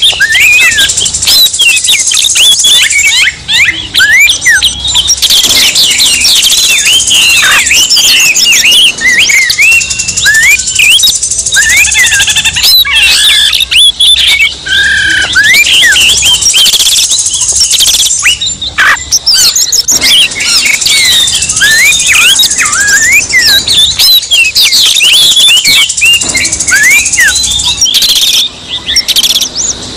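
Oriental magpie-robins (kacer) singing loudly and without a break: a dense tangle of fast whistles, rising and falling slurs and chattering trills from several birds layered together. It is the excited, combative song of a kacer 'emosi', one worked up and challenging a rival.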